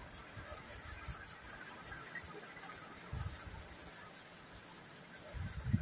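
Quiet sounds of people eating rice by hand from steel plates, with fingers working the food and soft rubbing and crackling. There are soft low thuds about three seconds in and again near the end.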